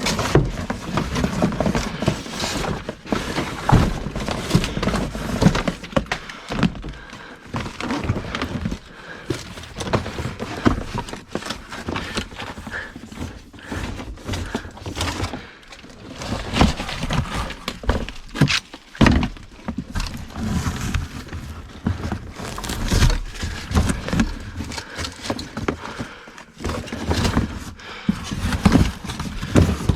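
Electrical cable being tugged and handled among a bundle of wires: irregular scraping, rustling and knocking, with many short thumps.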